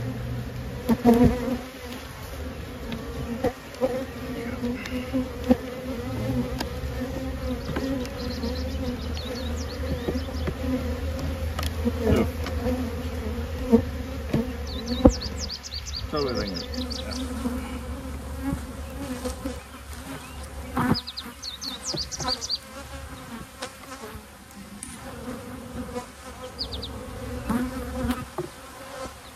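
A honeybee colony buzzing steadily from an open hive, the combined hum of many bees on the frames. A few sharp knocks stand out, the loudest about a second in.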